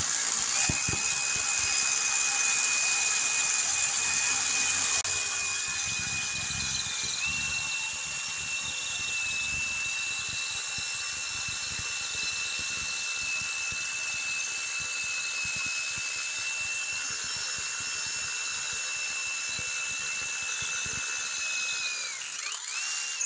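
Scans SC5200 20-volt brushless SDS rotary hammer drilling into a concrete slab with a 3/8-inch masonry bit, hammering steadily under a high motor whine. The whine steps up slightly in pitch about seven seconds in, and the drill stops near the end.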